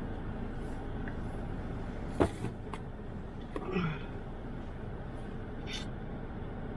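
Car driving, with steady engine and road noise. A single sharp click about two seconds in, and a brief short sound a second or so later.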